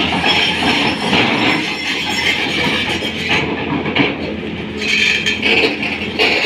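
Tata Hitachi 200 hydraulic excavator at work: its diesel engine runs with a low steady hum under a dense metallic clatter of knocks and a high squeal that rises and falls.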